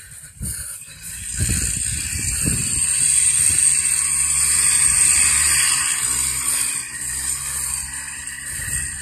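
Sport ATV engine running and revving as the quad is ridden in tight turns on grass, swelling about a second and a half in and easing off near the end, with a steady high hiss over it.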